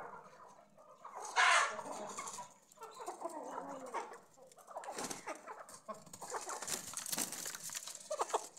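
A flock of Aseel chickens clucking while being fed torn roti, with one loud harsh burst about a second and a half in.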